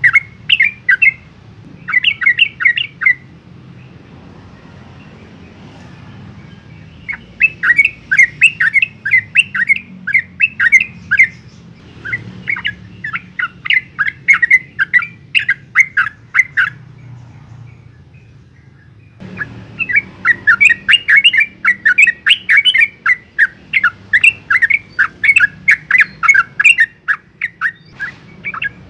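Yellow-vented bulbul (trucukan) in full rapid-fire song: long runs of quick, chattering notes. The runs come in several bouts separated by pauses of a few seconds. A faint steady hum lies underneath.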